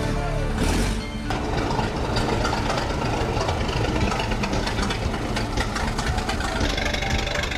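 Engine of an antique American LaFrance fire engine idling, with a rapid, uneven ticking rattle.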